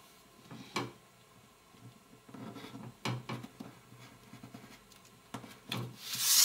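Craft knife cutting along a curve through folded pattern card on a cutting mat: faint, irregular scraping strokes with a few sharper clicks, and a louder rustle of the card near the end.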